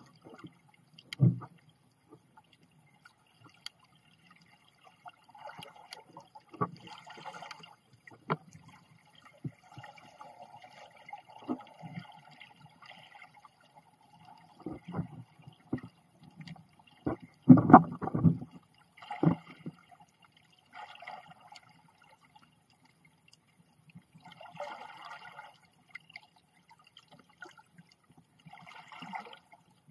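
Underwater sound picked up through an Insta360 camera's dive case: scattered low thuds and bumps, the loudest about 17 to 18 seconds in, with short bursts of hiss from water moving around the case.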